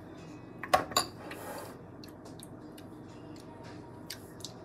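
A spoon clinks twice against a bowl about a second in, followed by a brief scrape and a few faint ticks.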